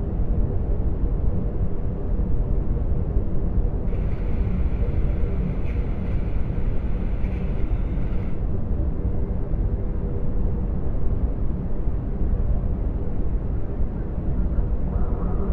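Sound-designed hyperspace ambience of a Venator-class Star Destroyer's bridge: a steady low rumble and hum. A thin layer of high tones with a few ticks comes in about four seconds in and stops about four seconds later.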